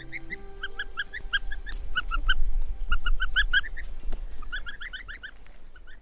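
Domestic ducklings peeping: many short, high calls in quick runs, busiest in the middle and again near the end.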